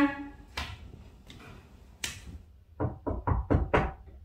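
A couple of light steps on tiled stairs, then a quick run of about six dull knocks on a bedroom door, about three seconds in.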